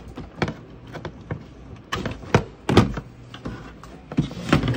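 Irregular sharp knocks and clicks as metal BNC connectors and coax camera cables are handled and plugged into the back of a CCTV DVR, and the recorder's metal case is shifted on a wooden desk.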